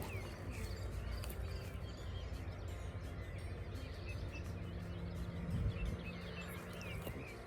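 Small songbirds chirping and calling in short, repeated notes over a steady low rumble. A low steady hum joins from about four seconds in until near the end.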